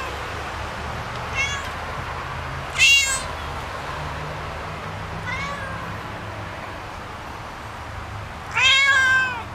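Cat meowing four times: two short faint meows and two loud ones, the last and longest near the end. A steady low hum sits underneath.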